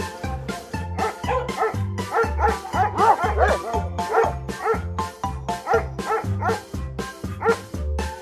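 A dog barking several times in quick succession, mostly in the middle, over music with a steady beat.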